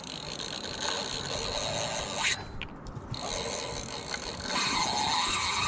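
Fishing reel drag clicking and buzzing steadily as a large fish pulls line off the spool, with a short break about halfway.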